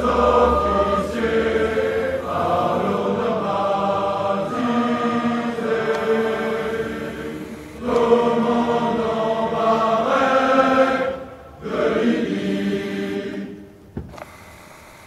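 Massed choir of officer cadets singing a slow a cappella ode in long held phrases. The singing dies away near the end, followed by a single sharp knock.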